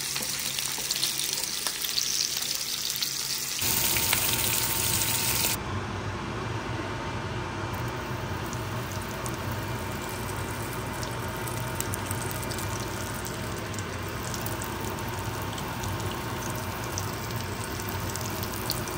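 Corn dogs frying in hot oil: a steady sizzle with faint crackles. About four seconds in, a low hum joins and the sizzle briefly gets louder, then the higher hiss falls back a couple of seconds later.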